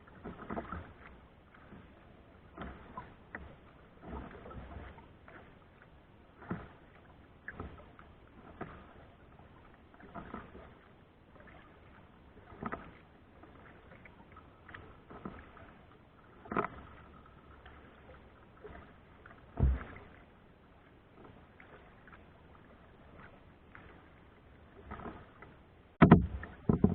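Kayak paddle strokes dipping into the water, a splash every second or two, with a low thud partway through and a loud knock near the end.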